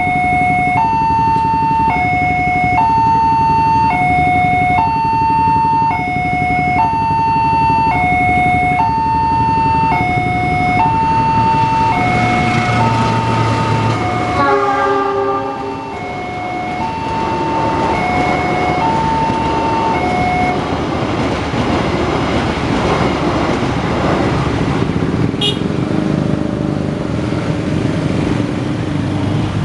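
Railway level-crossing warning bell sounding two alternating electronic tones, about one high-low cycle a second, while a CC 206 diesel-electric locomotive passes with a brief horn blast about halfway. The bell stops about two-thirds of the way through, leaving the rushing noise of the passing train and traffic.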